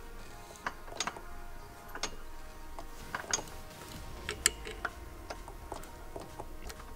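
Irregular small metallic clicks and taps as a flat-blade screwdriver levers the contact-breaker points of a Puch Maxi E50 moped ignition to set the gap, with the sharpest click about four and a half seconds in.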